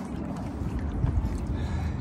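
Low, steady rumble of wind buffeting the microphone, with no clear knocks or voices.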